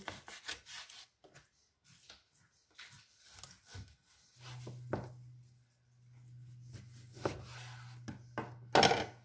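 Kitchen knife cutting raw chicken thighs on a wooden cutting board: scattered knocks of the blade on the board, with a louder knock near the end. A low steady hum sets in about four seconds in.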